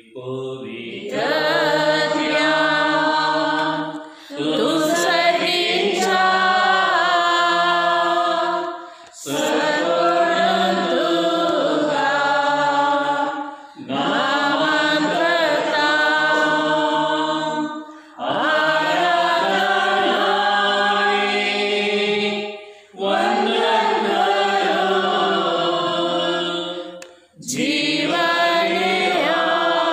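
Unaccompanied voices chanting a devotional hymn, sung in long held phrases of about four seconds each, with short breath pauses between them.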